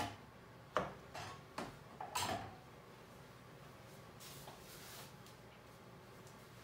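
Kitchen knife knocking against a cutting board as an avocado is cut: three or four sharp knocks in the first two and a half seconds, the last a little longer, then only faint kitchen handling.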